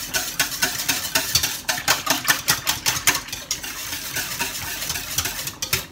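Wire whisk beating eggs and water in a stainless steel mixing bowl, the wires clicking and scraping against the bowl about five strokes a second, with a brief pause near the end.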